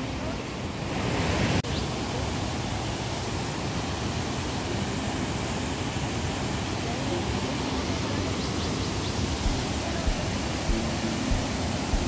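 Ramboda Falls rushing over boulders: a steady, dense roar of falling water with no breaks. There is a small jump in level about one and a half seconds in.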